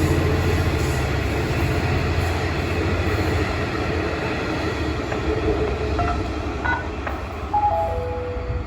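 A train passing on the tracks, its rumble and wheel noise slowly fading as it moves away. Near the end a few short tones step down in pitch, and the sound cuts off abruptly.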